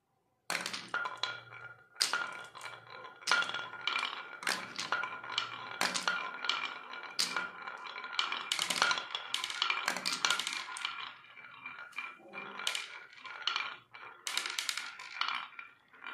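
Marbles rolling down a carved wooden serpentine marble-run track, rattling and clicking against the groove walls and against each other in a dense, uneven run of clicks with a ringing tone. The clicking starts about half a second in.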